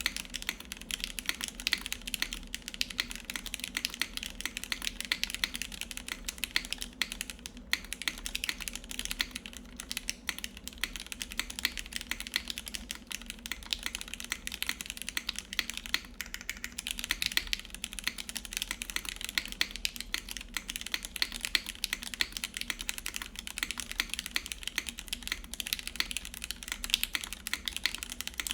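Continuous typing on a 60% mechanical keyboard with lubed Gateron Yellow linear switches, an ABS plate and GMK Dolch keycaps: a dense, steady stream of keystrokes, with a short pause about eight seconds in.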